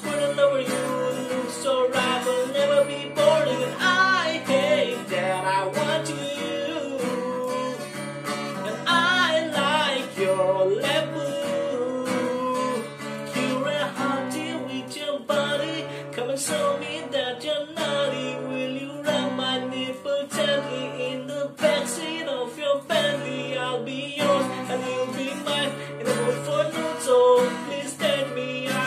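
A man singing a pop melody while strumming an acoustic guitar in a steady rhythm.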